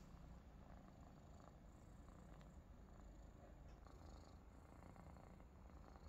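Maine Coon kittens purring faintly and steadily as they doze, a low continuous rumble.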